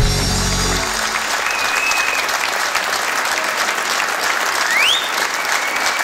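Theatre audience applauding after the band's closing chord stops within the first second, with two whistles in the crowd, the second rising in pitch.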